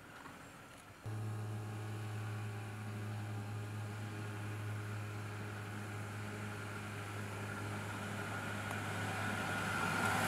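Jeep Gladiator Mojave's 3.6-litre V6 engine running at a steady low speed as the truck crawls along a sandy trail, starting abruptly about a second in and growing louder as it approaches.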